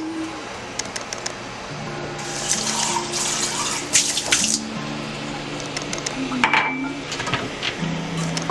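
Background music with held melodic notes. From about two seconds in, a running, splashing liquid hiss lasts a couple of seconds, with a few sharp clicks.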